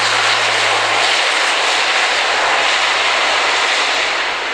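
Airbus A400M's four Europrop TP400-D6 turboprop engines running at take-off power as the aircraft makes its take-off run. A loud, steady rush that starts to fade near the end as the aircraft moves away.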